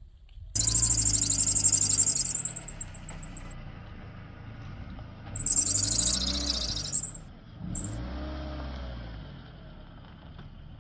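A motor vehicle's engine revving in bursts: a loud burst about half a second in, another near six seconds and a brief one near eight, each with a loud hiss on top, then running more quietly.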